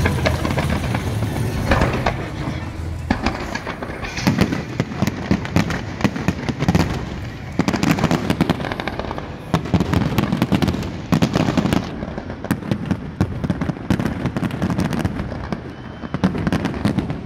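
Fireworks display: a dense run of sharp bangs and crackling from bursting aerial shells and rising comets, thickening about three seconds in and going on in waves.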